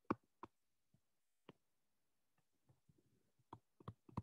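Near silence broken by a few faint, sharp taps of a stylus on a tablet screen during handwriting, with a small cluster of taps near the end.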